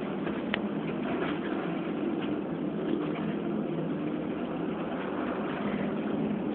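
Volvo B7RLE bus's rear-mounted six-cylinder diesel engine running, heard from inside the passenger saloon as a steady low hum. There is a light click about half a second in.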